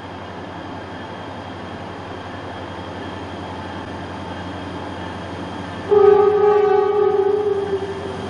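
Approaching diesel freight locomotive with its engine rumbling steadily, then one horn blast about six seconds in, lasting nearly two seconds, sounded as it passes a whistle post.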